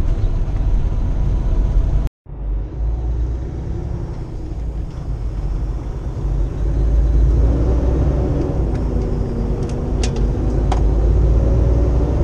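In-cab sound of a 2015 Kenworth T680 semi-truck driving on the highway: a steady low engine and road rumble. The sound cuts out briefly about two seconds in, and in the second half a wavering engine drone comes up over the rumble.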